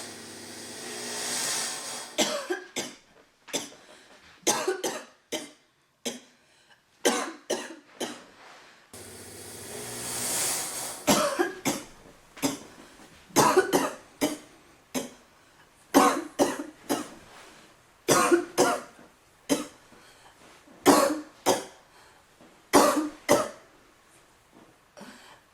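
A young woman coughing over and over in short fits, set off by the fog and vape smoke she is breathing. A steady hiss runs through the first two seconds and again about nine seconds in.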